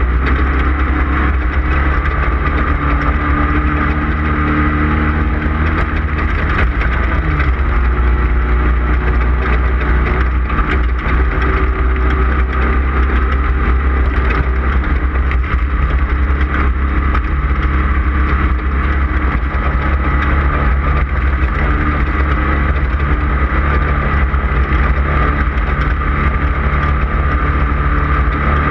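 Off-road race car's engine running hard and steady at speed, loud, with the pitch shifting a little now and then and constant small rattles and knocks from the vehicle over rough ground.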